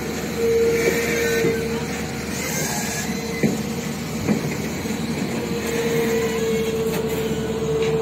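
Steady road-traffic and construction-site noise: a continuous rumble under a held mid-pitched drone that fades in and out, with a few light clanks.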